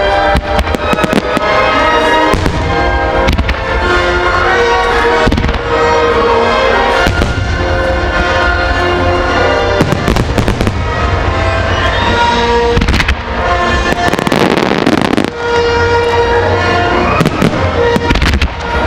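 Starmine fireworks display: shells bursting in rapid succession, with a dense cluster of bursts about two-thirds of the way through. Music with sustained tones plays alongside the bursts.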